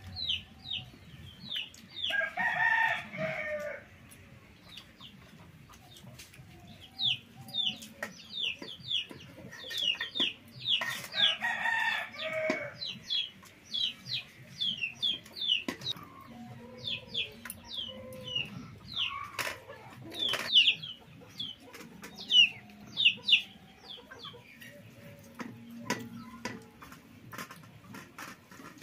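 A rooster crowing twice, each crow lasting about two seconds, once early and once near the middle, over a constant run of short high chirps from chickens. A few sharp clicks, the loudest sounds, come about two-thirds of the way in.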